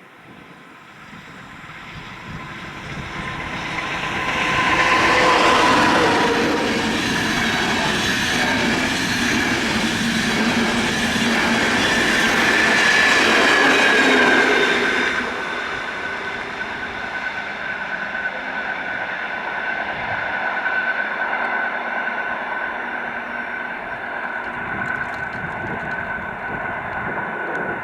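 A nine-coach passenger train approaches and passes close by. The rumble and rail noise build for about five seconds and are loudest through the middle. The rest of the coaches then roll past more steadily, with a high ringing wheel squeal running through.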